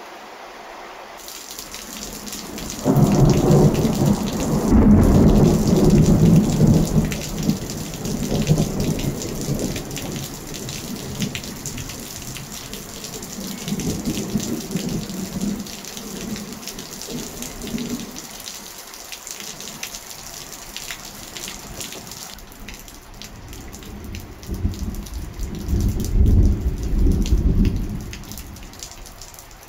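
Thunderstorm: heavy rain falling steadily while rolling thunder rumbles, a loud rumble starting about three seconds in and fading slowly, a weaker one in the middle, and another strong rumble near the end.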